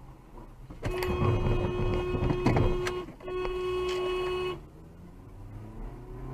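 Car horn held in two long blasts, the first about two seconds and the second just over a second, on one steady pitch.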